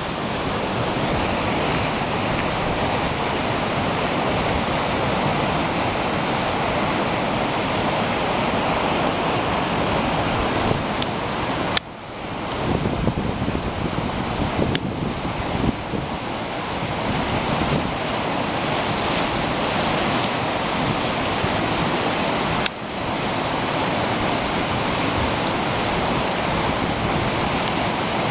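Burn in flood rushing over its banks as a steady loud torrent, with wind on the microphone. The noise is broken by a short click and dip three times.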